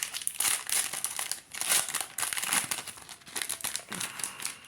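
Baseball trading cards being handled and flipped through, giving irregular crinkling and rustling in quick bursts.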